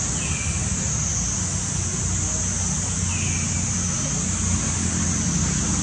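Steady outdoor background noise: a continuous high hiss over a low rumble, with two short, high, slightly falling chirps about three seconds apart.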